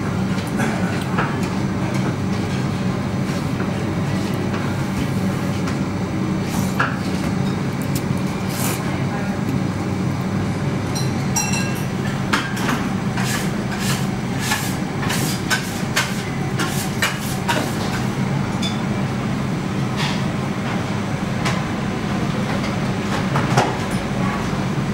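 Restaurant room tone: a steady low machine hum with scattered clinks and knocks of tableware, thickest in the middle stretch.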